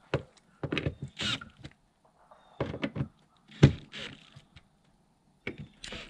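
Cordless drill driving screws in a series of short bursts, snugging down the screws that clamp a rubber chimney flashing boot to a metal roof in a final tightening pass.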